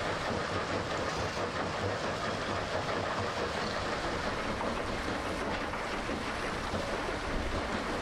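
Metso Lokotrack mobile crushing and screening plant running: a steady mechanical noise of engines, crushers and conveyors, with crushed gravel pouring off a conveyor onto a stockpile.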